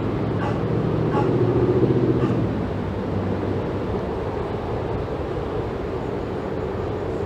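A steady low rumble, swelling a little about two seconds in.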